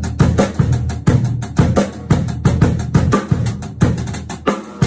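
Snare drum played in a quick run of strokes with the sticks, bare, without the spare drum head laid over it, so it rings in its normal, undampened form.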